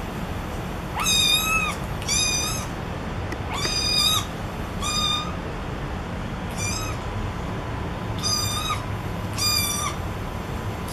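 Kitten meows played through a smartphone's small speaker from a cat-meowing compilation video: about seven short, high-pitched meows of nearly the same shape, roughly one a second.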